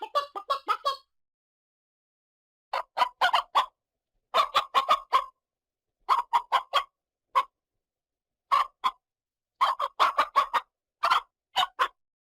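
Chicken clucking: groups of three to six short clucks, separated by pauses of complete silence.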